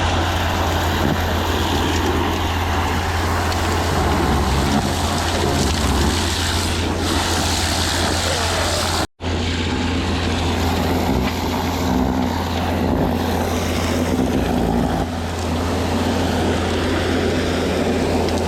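A heavy engine running steadily with a constant low hum and a loud rushing noise over it, cutting out for an instant about nine seconds in.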